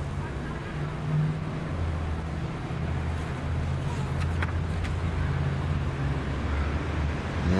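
Steady low rumble of background noise, with a few faint paper rustles as a book page is turned about four seconds in.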